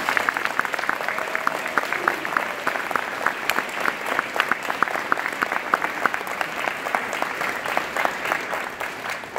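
Audience applauding, many people clapping at once, with single sharp claps standing out of the steady patter.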